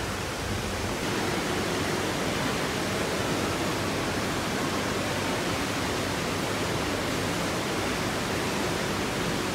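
Steady rushing noise of moving water in a large aquarium tank, a little louder about a second in.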